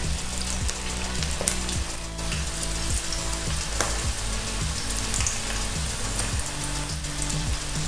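Spice-and-flour-coated okra pieces sizzling as they deep-fry in hot oil in a steel kadai, with a steady bubbling hiss and a few soft clicks as more pieces are dropped in.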